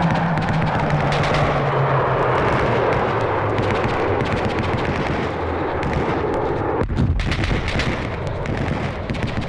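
Battle sound effect: dense, continuous machine-gun and rifle fire, with a low drone sliding slightly down in pitch over the first few seconds and a heavier blast about seven seconds in.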